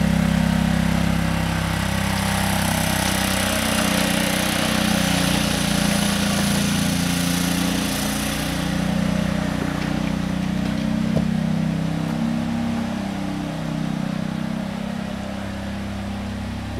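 Small engine of a ride-on backyard locomotive running steadily while it hauls a loaded car, its pitch rising and falling slightly. A high hiss sits over it and fades out about halfway through.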